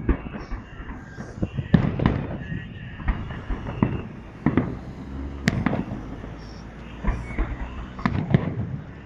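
Fireworks salute: aerial shells bursting overhead, a series of sharp bangs at irregular intervals, several close together about two seconds in and again near the end.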